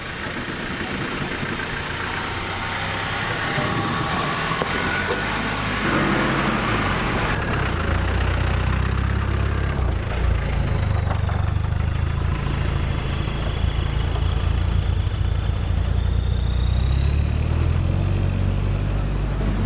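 Off-road 4x4 engine running under load, growing louder and heavier from about seven seconds in.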